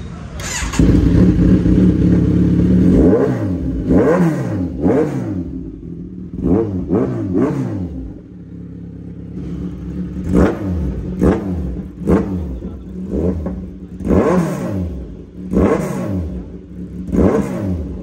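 Motorcycle engine running through an aftermarket Arrow slip-on silencer with its dB killer removed. It is revved about a second in, then the throttle is blipped repeatedly, about a dozen times, each time the revs rising and dropping back to idle.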